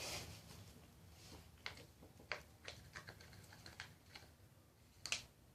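Faint, scattered clicks and small taps as slime is tipped out of its mixing container, with the loudest tap near the end.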